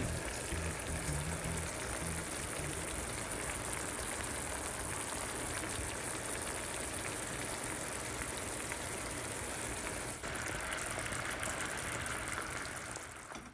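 Food sizzling in hot oil in a frying pan: a steady, dense crackling hiss that cuts off suddenly at the end.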